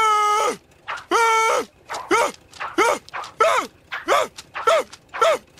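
Cartoon character's voice making a string of short pitched vocal sounds, about two a second and getting shorter, after two longer held ones near the start.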